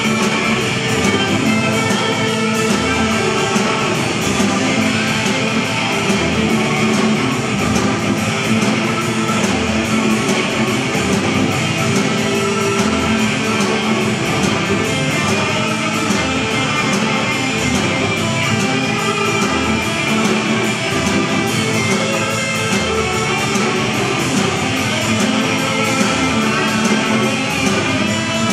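Live rock band playing an instrumental passage: electric guitar lead over bass guitar and drums, with a steady low beat.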